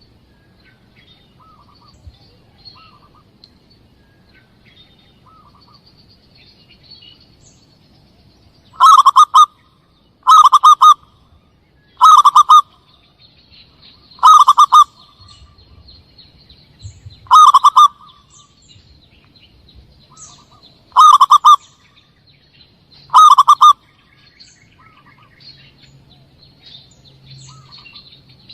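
Zebra dove (perkutut) cooing as a bird lure: seven loud, rapid rolling coos, each under a second long, come one to four seconds apart from about nine seconds in. Fainter short calls and high thin chirps sit underneath.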